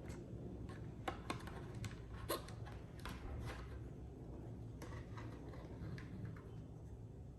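Hands handling and fitting parts: scattered small clicks and scrapes, with a few sharper clicks between about one and two and a half seconds in, over a low steady background hum.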